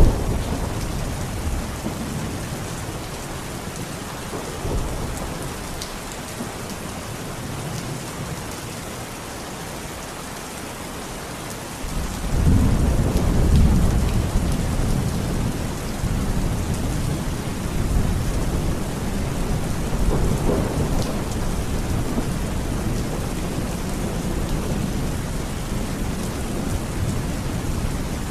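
Heavy rain falling steadily with thunder rumbling; a loud, deep roll of thunder breaks in about twelve seconds in and keeps rumbling under the rain.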